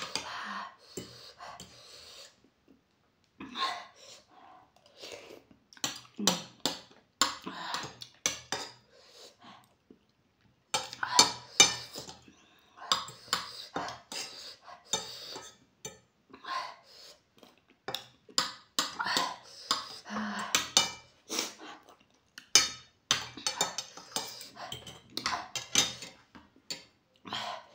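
Metal fork and spoon scraping and clinking against a ceramic plate, gathering up the last of the ramen noodles. The sounds come in irregular runs of clicks and scrapes, with brief lulls about two seconds and ten seconds in.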